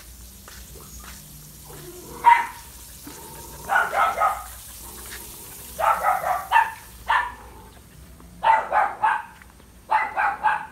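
Dog barking in quick runs of several barks, a new run every second or two, with a single bark about two seconds in.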